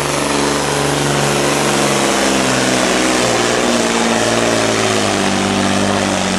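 Pulling truck's diesel engine running flat out under full load as it drags the weight-transfer sled. Its note wavers about two seconds in and climbs a little near the end.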